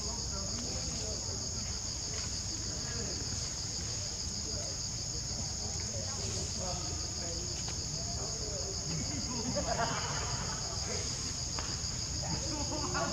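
Forest insect chorus: a steady, high-pitched pulsing trill that runs on without a break.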